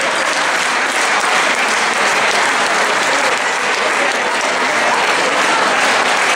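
Audience applauding steadily, a dense clapping that holds at one level throughout.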